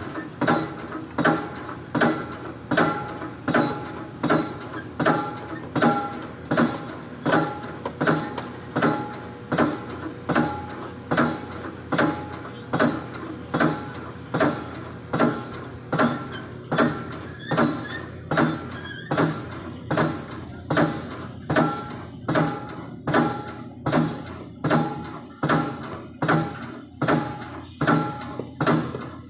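Background music with a steady beat: a pitched percussive hit repeating a little more than once a second.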